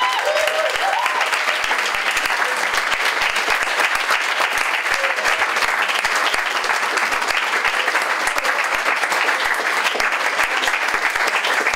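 An audience clapping steadily, with a few voices calling out briefly near the start.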